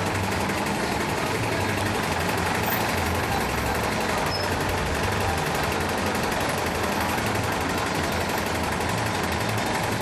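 Cabin of a 2011 NABI 40-SFW transit bus with its Cummins ISL9 diesel engine running: a steady engine drone with low hum, heard from on board.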